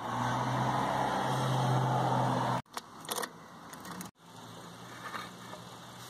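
Ford 8N tractor's four-cylinder gasoline engine running steadily, in short cut-together clips: loud at first, then quieter after two sudden cuts, with a few brief clicks about three seconds in.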